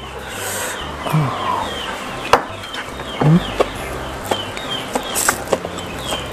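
A man slurping and chewing a mouthful of fried instant noodles (Indomie goreng), with short wet clicks and a few brief hissing slurps, close to the microphone.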